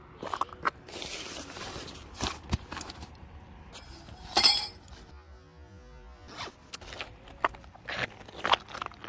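A nylon camping carry bag being packed and zipped shut, with rustling and one loud zip about halfway through. Then footsteps on loose river pebbles near the end.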